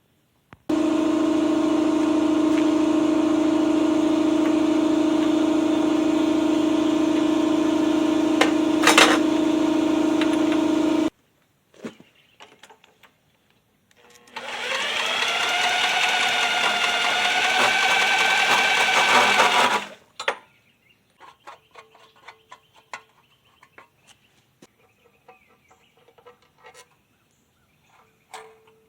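Small Briggs & Stratton engine on a vintage Eclipse reel mower running at a steady speed, cutting off suddenly about eleven seconds in. A few seconds later it runs again for about five seconds, its speed rising and then wavering, and stops; scattered light clicks and knocks follow.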